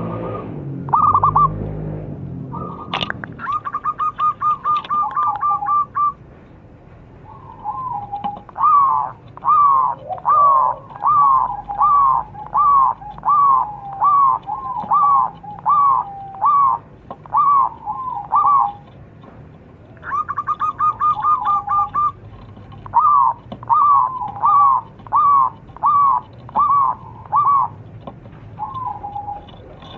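Zebra dove (perkutut) singing: a quick rattling trill, then a long string of short cooing notes, each dropping in pitch, about two a second; the phrase comes twice, with a pause in between.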